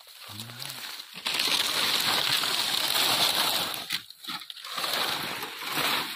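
Dry, stiff palm fronds being grabbed and dragged aside through grass: a loud rustling and scraping of dead leaves in two long stretches, with a short break about four seconds in.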